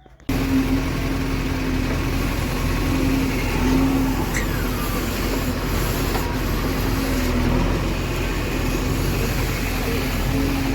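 Heavy diesel engine running steadily, coming in abruptly just after the start, with a wavering low hum over a rough, noisy drone.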